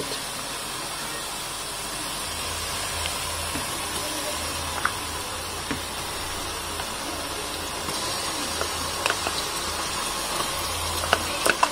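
Sliced onions, green chillies and whole spices frying in ghee and oil in an aluminium pot, a steady sizzle throughout. A few light clicks come as a spoon scoops ginger-garlic paste from a plastic tub and drops it into the pot.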